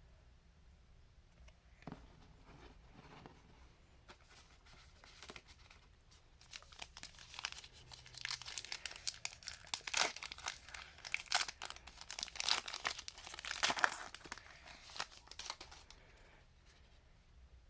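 Foil wrapper of a trading-card pack being torn open and crinkled: a few light taps, then a dense run of crackling from about six seconds in to near the end.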